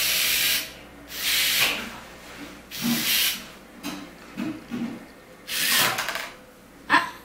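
Small gear motors and tracks of a home-built LOZ (K'nex-clone) tracked robot making a grinding, rasping sound across a tile floor in short spurts, each about half a second to a second long, with quieter gaps between.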